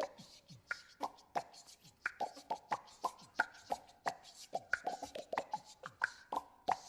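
A person making rapid percussive clicks and pops with the mouth, several a second in an uneven rhythm, many of them with a short tone that drops in pitch.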